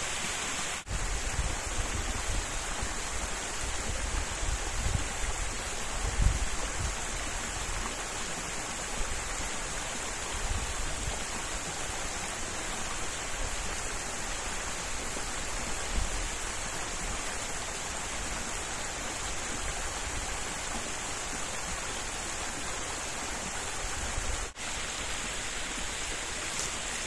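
Small mountain brook running steadily, an even rushing of water, with a few low thumps and two momentary dips, about a second in and near the end.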